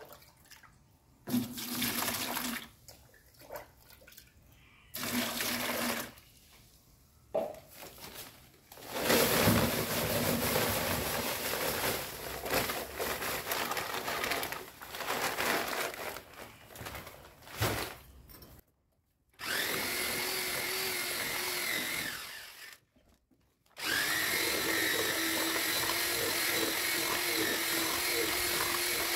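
Electric drill with a mixing paddle churning cement mortar and water into a paste. It runs in a few short bursts, then in a long uneven stretch, then in two steady runs with a short pause between.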